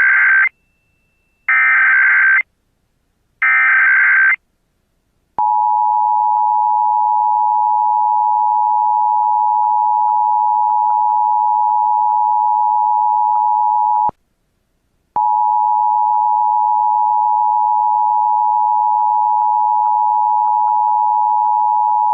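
Emergency Alert System tones for a Required Monthly Test. First come three short bursts of the SAME digital header's data screech, about a second each. About five seconds in, the steady two-tone attention signal (853 and 960 Hz) starts; it breaks off for about a second near the middle and then resumes.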